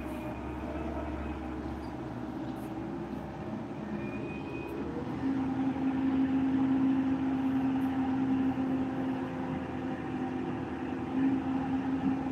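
Engine of a road-work vehicle running, a steady drone that grows louder about five seconds in.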